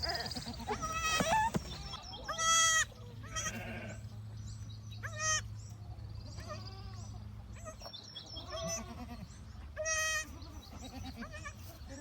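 Sheep and lambs bleating repeatedly, several calls overlapping; the loudest come about two and a half, five and ten seconds in.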